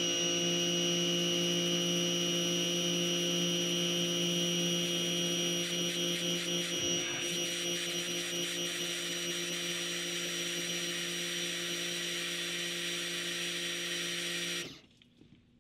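Rock&Rocker electric pressure washer running under load, a steady whine from its motor and pump with water jetting from a 25-degree nozzle into a plastic bucket. It cuts off suddenly near the end as the trigger is released.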